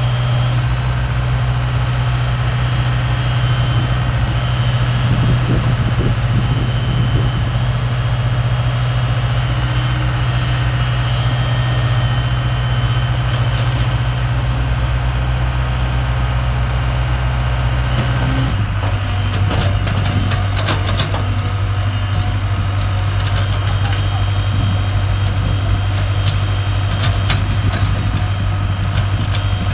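Diesel excavator engine running steadily as it works in mud. Its note drops to a lower pitch about two-thirds of the way through, and scattered short knocks come after.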